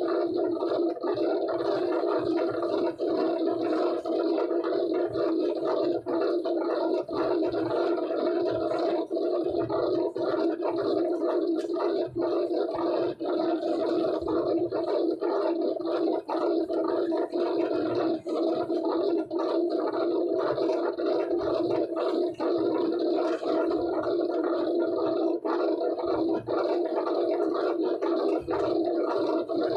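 A steady, rough mechanical drone, like a machine running continuously, with frequent small clicks and knocks over it.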